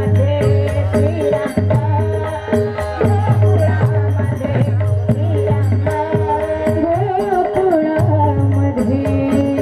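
Women singing a Marathi devotional gavlan (bhajan) in chorus over a held harmonium-style drone, with a steady beat of percussion strikes.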